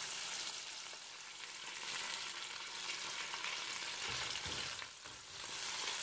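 Chicken pieces sizzling steadily as they brown in hot oil in a pan over medium-high heat. About four seconds in, metal tongs move the pieces, with a few brief low knocks.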